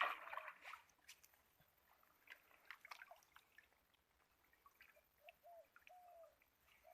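Faint water trickling and dripping, close to silence, with scattered soft ticks.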